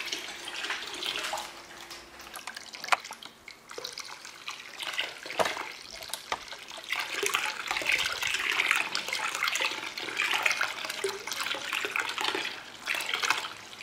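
Cooled porter wort running from a transfer hose into a plastic fermenting bucket, splashing and foaming as the bucket fills, with a few light knocks along the way. The splashing aerates the wort ready for the yeast.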